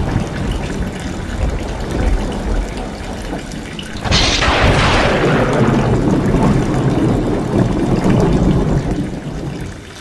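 Heavy rain with rainwater pouring off the roof tiles in a steady stream. About four seconds in, a sudden loud thunderclap breaks in and fades slowly over the following seconds.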